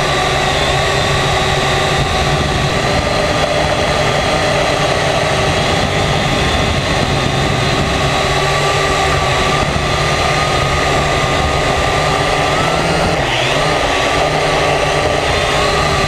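Drone's electric motors and propellers buzzing steadily, heard up close through the drone's own on-board camera, the whine wavering slightly in pitch and dipping briefly about thirteen seconds in.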